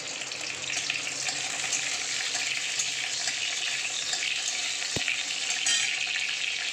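Panch phoron, a whole dried red chilli and a bay leaf sizzling and crackling in hot oil in a kadai.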